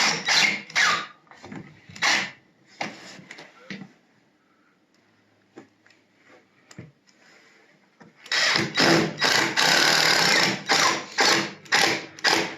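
Power drill driving screws, first in several short bursts, then after a pause in a longer pulsing run of about four seconds.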